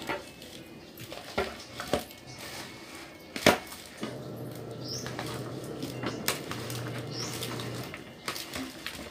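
Chopped boiled pork cheek being mixed in a plastic bowl, first by hand and then with a spoon, giving scattered clinks and knocks against the bowl, the sharpest about three and a half seconds in. A low steady hum runs from about four seconds in to nearly eight.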